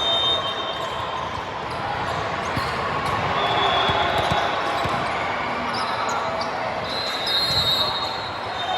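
Gym sounds during play: balls thumping on the hardwood floor and athletic shoes squeaking on the court, over a steady hubbub of voices in the hall.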